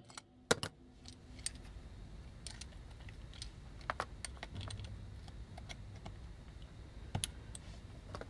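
Faint, scattered light clicks and taps of small plastic toy parts and a tool being handled, a few sharper clicks about four seconds in and near the end.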